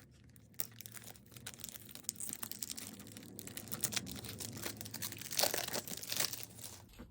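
Plastic wrapper being torn and peeled off a DVD case: irregular crinkling and crackling, loudest about five and a half to six seconds in.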